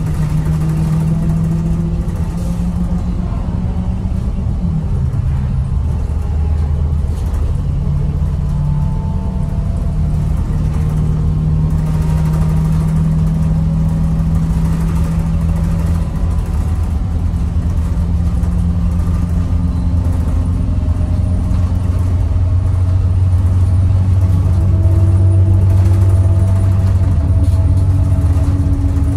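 2007 IC CE200 school bus's Navistar VT365 turbo-diesel V8 running under way, heard from inside the passenger cabin, on a test drive after its faulty injectors were replaced. The engine drone is steady and its pitch shifts several times, growing a little louder near the end.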